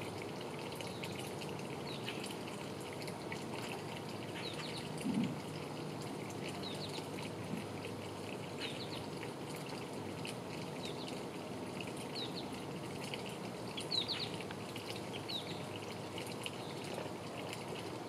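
Steady outdoor hiss with short, high bird chirps scattered through it, one every second or two.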